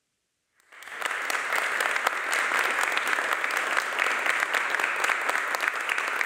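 Seated audience applauding steadily, starting suddenly under a second in after near silence.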